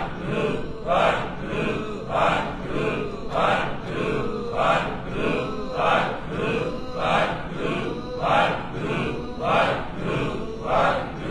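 Voices chanting a short phrase over and over in a steady rhythm, about once a second.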